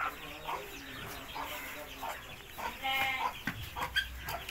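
Aseel chickens clucking and calling in a string of short calls, with a louder call about three seconds in, disturbed as their chicks are being caught. A few sharp knocks near the end.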